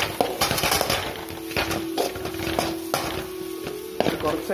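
Perforated metal spoon scraping and knocking against an aluminium kadai while stirring sautéing onions, green chillies and spices, in quick irregular strokes over a steady hum.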